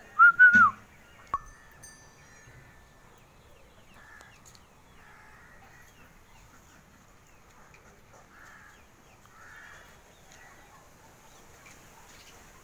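A single short high-pitched animal cry right at the start, held at one pitch and dropping at its end, then a click. After that only faint yard background with scattered soft chirps.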